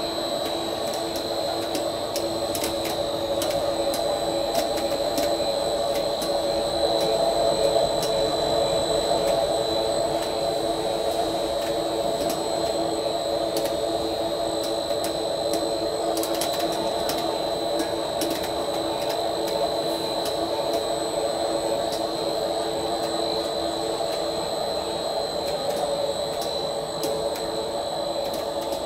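Biodegradable cast-film extrusion line running: a steady mechanical hum of motors and drives with a constant high-pitched whine and scattered light clicks.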